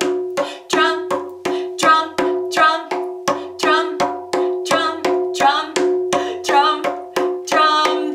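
Small djembe-style hand drum struck with alternating hands, back and forth, in a steady beat of about three strokes a second, each stroke ringing briefly over a sustained note.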